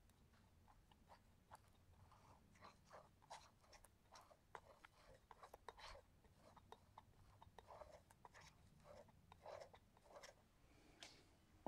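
Faint, irregular scrapes and soft ticks of a steel palette knife dragging thick yellow paint across a sheet of paper.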